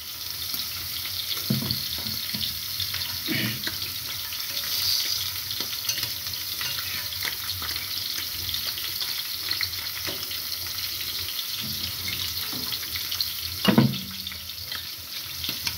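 Shredded meat sizzling steadily in a frying pan on a gas stove, with a few short hums from a man.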